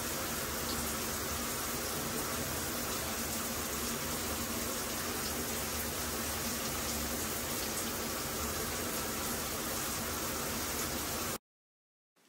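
Shower spray running steadily, an even rushing hiss of water. It cuts off suddenly near the end.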